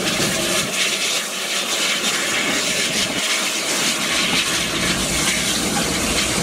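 Eureka & Palisade No. 4, an 1875 4-4-0 steam locomotive, passing close by with a steady rushing hiss of steam.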